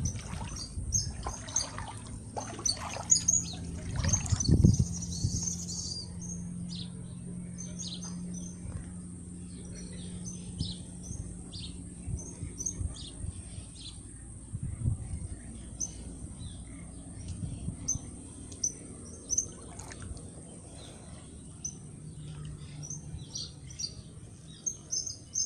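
Small birds chirping repeatedly in short, high calls throughout, over a low rumble. A few louder low thumps come in the first few seconds.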